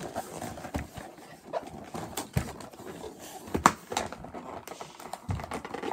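Cardboard boxes being handled as rubber basketballs are worked out of them: irregular knocks, scrapes and rustles, the sharpest knock about three and a half seconds in.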